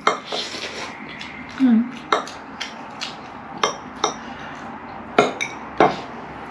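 Metal forks clinking and scraping against ceramic plates as two people eat noodles: irregular sharp clinks, about eight of them.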